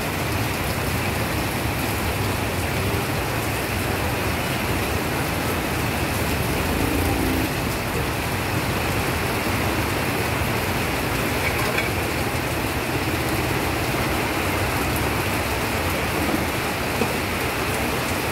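Heavy rain falling, a steady, unbroken hiss.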